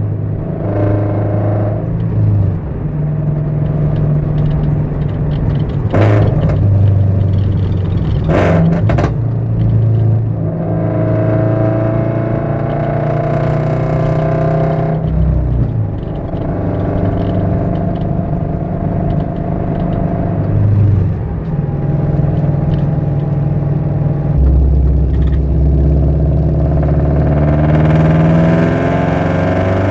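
Toyota GR86 2.4-litre flat-four running through a JDL unequal-length header and HKS cat-back exhaust, with the note stepping up and down in pitch several times as the revs change. Two sharp clicks sound a couple of seconds apart about a quarter of the way in.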